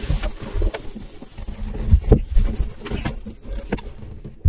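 Irregular rustling, scraping and knocks as a cloth is pushed by hand into a jet ski engine bay beneath the oil filter, with the heaviest knocks about two seconds in.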